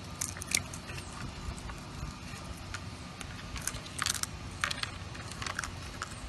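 Young raccoon chewing crunchy food, a run of irregular small crunches and clicks, with a few louder ones about four to five seconds in, over low steady background noise.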